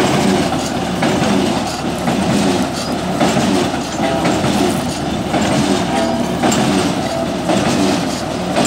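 Water-well drilling rig running while it bores: its engine runs steadily under a constant rattling, clanking clatter from the drilling machinery, with brief squeaks now and then.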